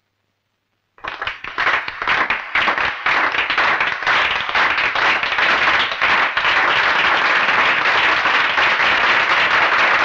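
A large crowd starts applauding about a second in. A few separate claps quickly thicken into steady, loud applause.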